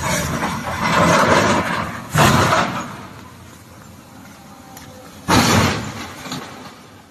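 Excavator tumbling down a rock cliff: rumbling of falling rock and debris, then two sudden loud crashes about three seconds apart as the machine hits the slope.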